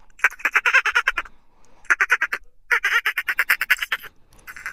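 Dolphins making burst-pulse calls: rapid trains of clicks running together into buzzing calls, in four short bursts with brief gaps between them.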